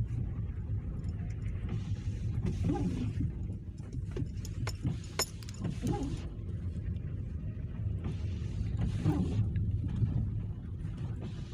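Car driving, heard from inside the cabin: a steady low engine and road rumble, with a hiss that swells and fades several times and a few small clicks.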